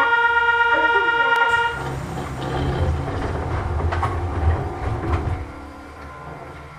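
Funicular station departure buzzer sounding as one steady electronic tone that cuts off nearly two seconds in. After it, a low mechanical rumble with a few knocks, which dies down about five seconds in.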